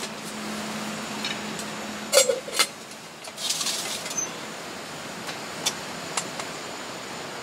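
Camp cooking at a small table: two sharp metal clanks about two seconds in, then a short splashing rush of motsunabe soup poured from its pouch into the pot, and a few light clicks later, over a steady hiss.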